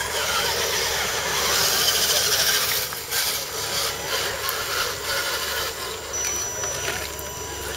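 Radio-controlled scale crawler trucks driving through mud: a steady whir of their small electric motors and gearing, with a thin high-pitched whine coming and going over the last couple of seconds.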